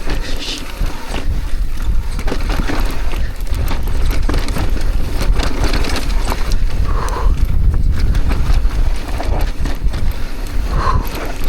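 Mountain bike riding down a dry, loose dirt trail: tyres rolling over dirt with the bike rattling and clicking over bumps, under heavy wind noise on the microphone.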